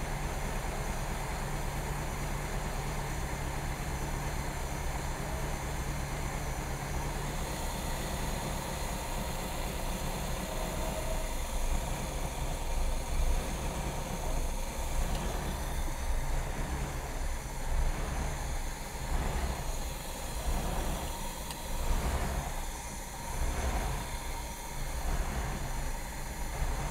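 GM 5.7-litre small-block V8 marine engine running while fogging oil is sprayed into its carburetor. It runs rough, and in the second half its sound surges and sags about once a second as the oil starts to choke it toward stalling.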